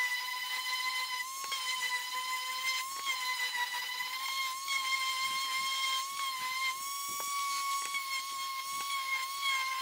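Random orbital sander with 120-grit paper running against the edges of a hardwood board to round them over. It gives a steady high whine whose pitch wavers slightly, with a few light taps.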